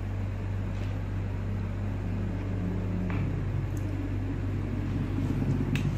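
Small 12-volt electric pesticide-sprayer pump, powered from a motorcycle battery, running with a steady low hum. A light click near the end.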